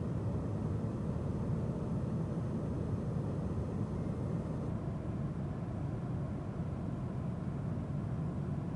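Steady low rumble and hiss of a Boeing 777-200ER's passenger cabin, the even background noise of the airliner's engines and air systems.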